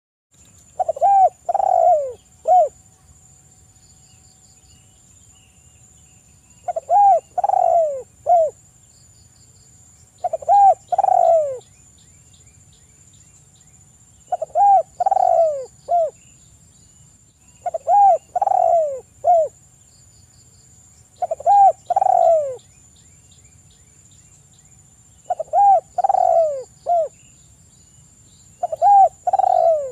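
Spotted dove cooing. It repeats the same three-note phrase eight times, every few seconds: a short coo, a longer rolling coo, then a short clipped coo.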